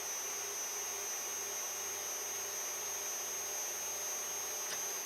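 Protomaker 3D printer's Z-axis stepper motors running steadily, driving the carriage down on its threaded rods during a homing move, with a steady whine and hum. A faint click near the end.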